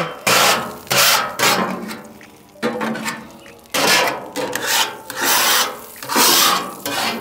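Metal griddle scraper pushed across the steel cooktop of a hot Blackstone propane griddle in about eight rasping strokes, one after another. The plate has been wetted with water so the scraper lifts the cooked-on residue off the hot steel.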